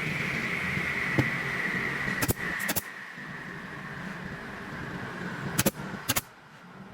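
A small motor running with a high whine that slowly falls in pitch and eases off about three seconds in, with a few sharp clicks along the way.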